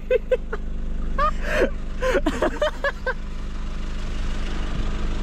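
Laughter in short bursts over the first three seconds or so, over the steady low hum of a four-wheel drive's idling engine.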